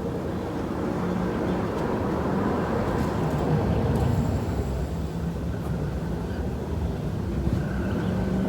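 A steady low rumble, even and continuous throughout, with a few faint ticks above it.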